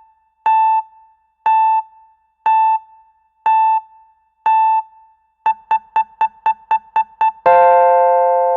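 Electronic countdown-timer beeps, one short high beep a second, then speeding up to about four a second, ending about seven and a half seconds in with a long, bright electronic chord that slowly fades.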